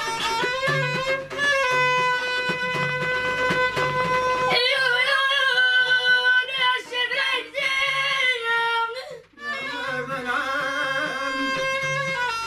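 Violin played upright on the knee with a bow, sustaining long notes over a steady frame-drum beat. About four and a half seconds in a woman's singing comes in with a wavering line, and after a short break near nine seconds the violin and drum carry on.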